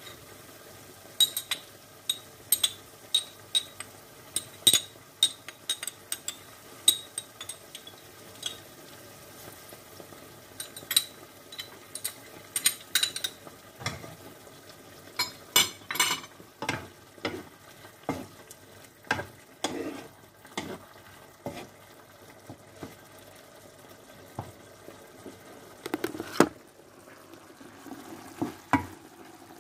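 A spoon stirring and clinking repeatedly against a container, the clinks coming thick for the first half and thinning out later, over the steady sizzle of a pan of chicken and vegetables simmering.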